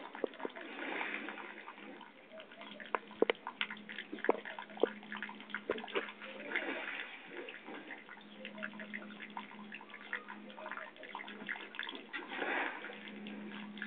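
Liquid trickling and splashing onto a wet floor, urine draining from a female buffalo during urinary catheterization, with scattered small taps and a few sharp clicks about three to five seconds in.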